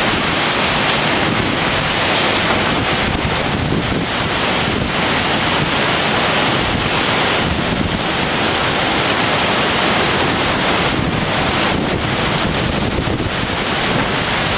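Violent storm wind with heavy rain, blowing without let-up through trees and buffeting the microphone; the filmer calls it a tornado.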